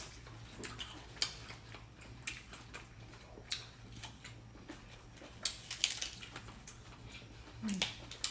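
People chewing and smacking their lips while eating, with scattered small clicks and ticks from mouths and chopsticks, over a low steady room hum. A short hummed voice sound comes near the end.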